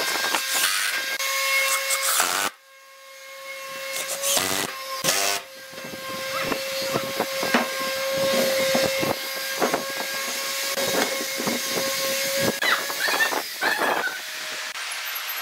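A woodworking power tool working wood: a steady whine under rough, repeated scraping strokes. The sound drops away sharply about two and a half seconds in, then builds back.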